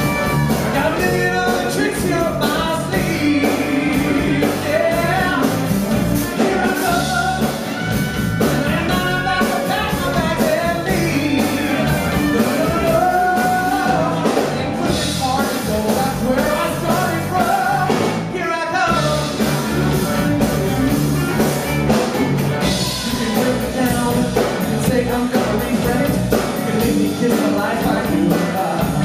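Male singer singing into a microphone over a live rock-and-roll band with drum kit, with a short break in the music a little past the middle.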